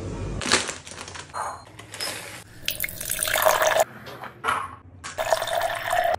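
Hot water poured from a kettle into bowls, twice: a splashing pour about three seconds in and another near the end. A few short rustles and knocks come in the first second or two.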